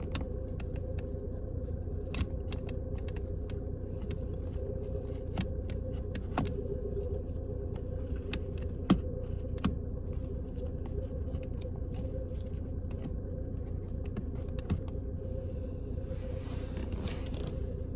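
Sparse, irregular clicks and scrapes of a blade cutting small pieces of plastic from inside a car's gear shifter, over a steady low hum.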